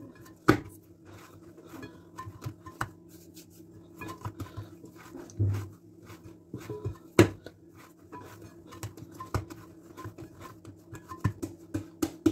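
Hands kneading a firm dough in a ceramic bowl: irregular knocks and slaps of dough and hands against the bowl, the two loudest about half a second and seven seconds in.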